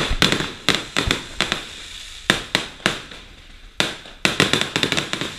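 Fireworks going off overhead: a string of sharp, irregular bangs and crackling pops, thickening into a quick cluster of pops about four to five seconds in.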